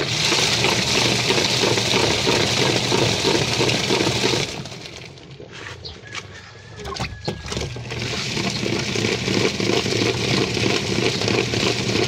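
Labamatic washing machine's motor driving the wash pulsator through the belt and gearbox, churning soapy water loudly. It eases off about four seconds in, with a few clicks during the lull, then starts churning again about eight seconds in, the on-off rhythm of a wash cycle.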